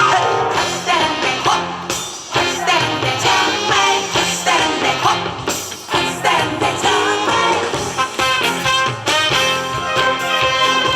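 Instrumental introduction of a Korean trot song: an upbeat backing track with a melody line over a steady beat, before the vocal comes in.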